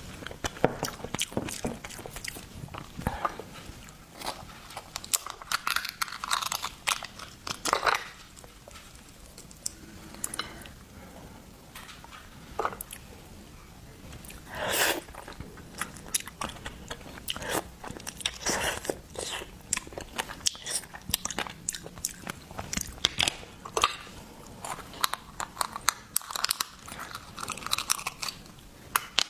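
Close-miked eating of seafood: irregular crunching, biting and wet chewing with many sharp clicks.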